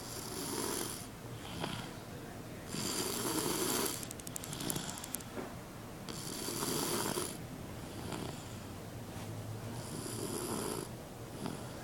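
A three-year-old child snoring softly in his sleep, four slow, even snoring breaths, one about every three seconds.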